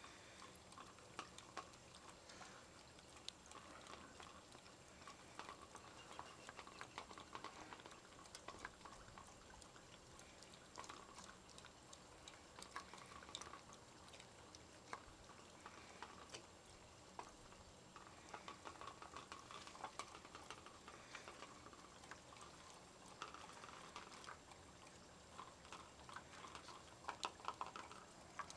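Belgian Tervuren shepherd dogs licking quark out of plastic bowls: faint, wet smacking with many small irregular clicks.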